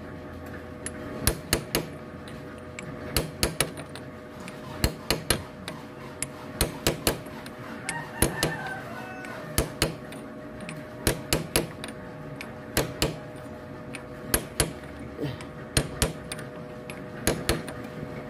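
Hammer knocking on a metal tube held over a motorcycle engine's sprocket shaft, tapping a fitting into place: sharp metal knocks in quick pairs and triples, a cluster every second or two.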